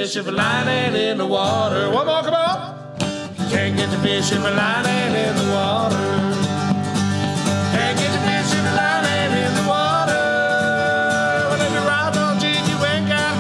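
Country-style song with strummed acoustic guitars and men singing. The music drops away briefly about three seconds in, then carries on.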